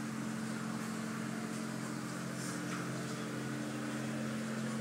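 Automatic tunnel car wash running: a steady machinery hum under a constant hiss of water spray, with a few faint ticks.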